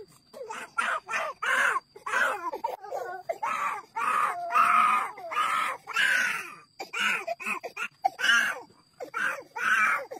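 Toddlers' voices: high-pitched shouting and babbling in short calls, one after another.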